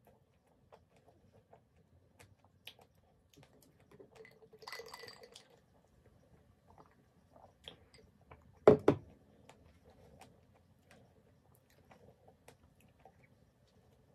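Close-up mouth sounds of someone chewing a soft strawberry and whipped-cream sandwich, small wet clicks and smacks. About two-thirds of the way through comes the loudest sound, a sharp double knock as the glass mug of iced coffee is set down on the table.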